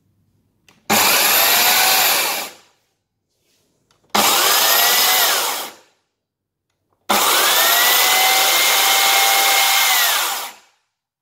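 Riwall RECS 2040 2000 W electric chainsaw run three times with no load. Its motor whines up to speed with the chain spinning, then winds down each time the trigger is released. The third run is the longest, about three and a half seconds.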